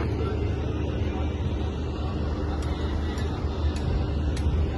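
Steady low rumble of construction-site noise, with faint, evenly spaced light ticks about every half second through the second half.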